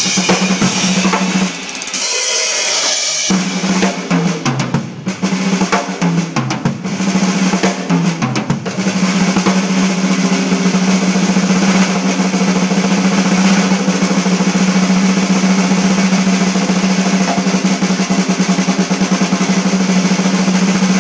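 Drum kit solo: cymbal crashes and quick fills with tom strokes stepping down in pitch, then from about nine seconds in a fast, unbroken roll on a single drum.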